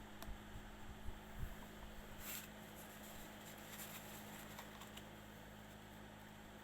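A faint steady electrical hum, with a few soft scattered clicks and a brief rustle about two seconds in.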